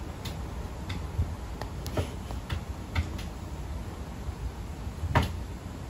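Scattered light taps and soft bumps as two cats swat at each other with their paws, with a louder bump about five seconds in, over a steady low room noise.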